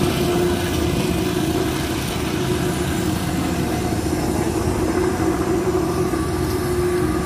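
Steady engine hum with wind buffeting the microphone.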